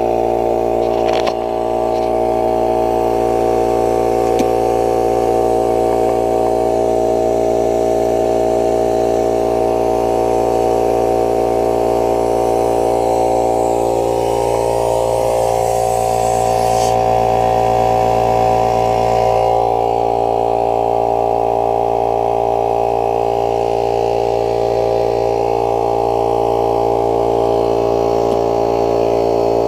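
Small portable electric air compressor running, a loud, steady motor sound with no break.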